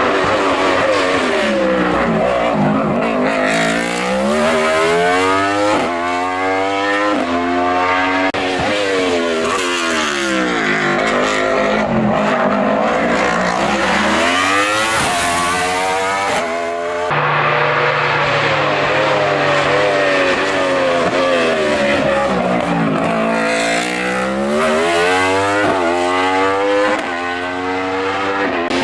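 Hill-climb race car engine at full throttle, revving up through the gears: the pitch climbs with each gear and falls back at every shift, over and over as the car drives the course.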